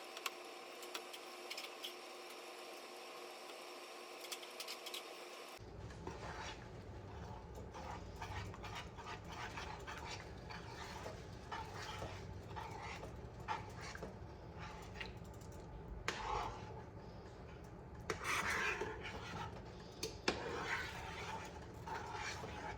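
Faint kitchen utensil noise: light scraping and scattered soft knocks, with a few louder stretches near the end, after a few seconds of a quiet steady hum.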